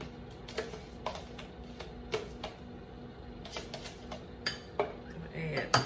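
Metal spoon scraping and tapping against a plastic cottage cheese tub and a glass bowl as cottage cheese is scooped out: scattered irregular clicks and taps, the sharpest near the end.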